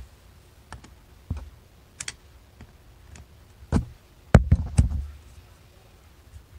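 Scattered clicks and knocks of a Phillips screwdriver and fingers against a metal Mikuni carburetor body as a small screw is undone, the loudest knocks a little after halfway.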